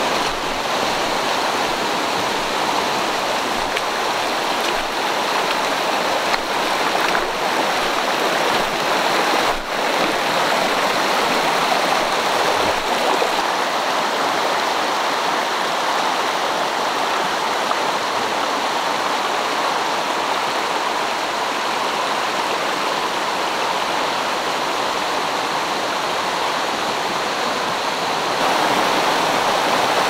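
Mountain stream rushing over cobbles and shallow riffles: a steady, full rush of running water that grows a little louder near the end.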